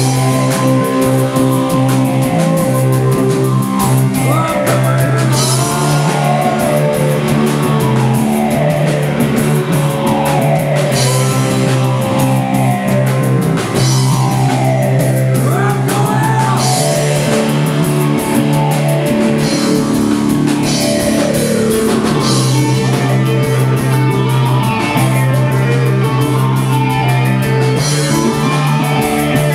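Stoner rock band playing live: two heavy electric guitars holding sustained low chords over a drum kit with crashing cymbals.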